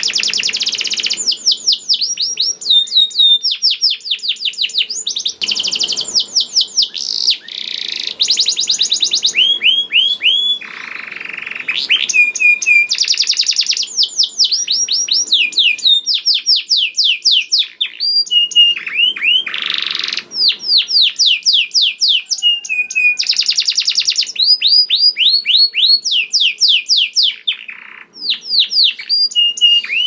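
Domestic canary singing without pause: long rolling phrases of fast trilled notes, each a rapid run of the same downward-sweeping note, alternating with short buzzy rasps and brief held whistles.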